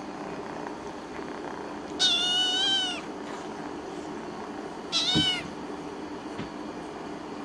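Tortoiseshell kitten meowing twice: a meow about a second long two seconds in, then a shorter one about five seconds in.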